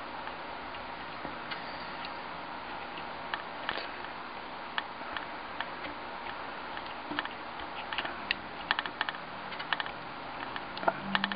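Soldering iron melting wire solder onto the lead seam of a glass display case: scattered small ticks and crackles over a steady hiss, coming more often and louder in the second half.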